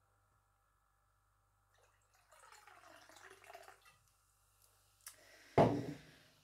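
Liquid poured from a glass bottle into a ceramic mug for about two seconds, its pitch shifting as it runs. About five seconds in there is a click, then a louder knock.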